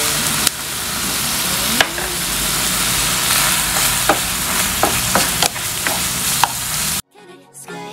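Tuna and chopped onion sizzling in oil in a nonstick frying pan while a spatula stirs them, with several sharp knocks of the spatula against the pan. The sizzling cuts off suddenly about seven seconds in.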